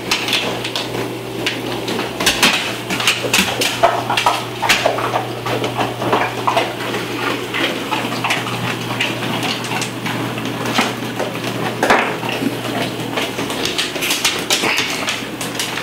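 A dog gnawing a bone on a wooden floor: a continual, irregular run of clicks, knocks and scrapes of teeth and bone, over a steady low hum.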